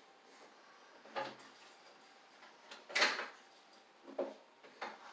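Four light knocks and clacks of handling at a workbench, the loudest about three seconds in.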